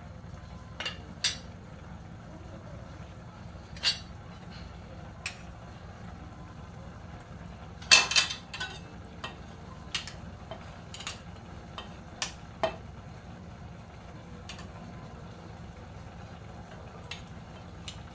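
Sharp clinks and taps of metal kitchen utensils, a dozen or so scattered through, with the loudest cluster about eight seconds in, over a steady low hum.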